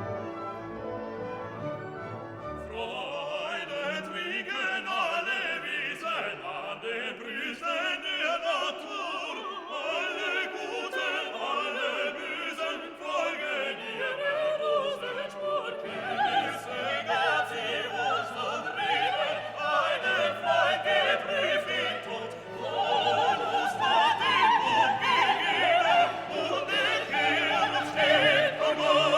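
Classical music: an orchestra with operatic singing.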